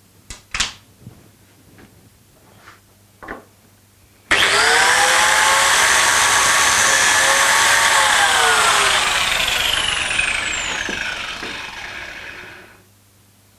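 A handheld electric power tool starts up suddenly about four seconds in and runs at full speed. It is then switched off and coasts down, its falling whine fading away over about four seconds. A few light clicks and knocks come before it.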